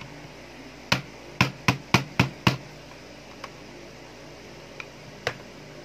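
Six quick hammer-knocks, about four a second, on a screwdriver held as a punch to drive a steel pin out of an airsoft Glock 18 slide resting on cloth, followed by a few lighter clicks as the parts are handled.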